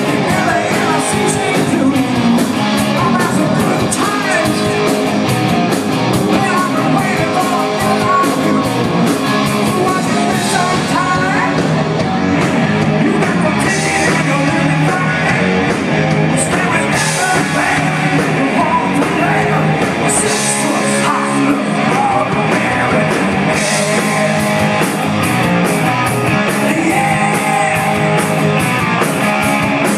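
A live rock band playing a song loud and without a break: a lead singer over electric guitars through Marshall amplifiers, with drums and cymbals.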